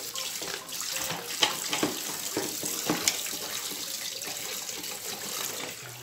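Tap water running steadily into a sink over a plastic fan grille, with short scrubbing strokes and knocks as the grille is washed by hand.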